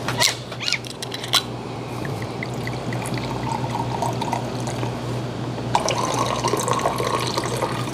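Liquor poured from a glass bottle into a tall drinking glass in a steady stream, growing louder about six seconds in. A few clinks of glass come in the first second or so.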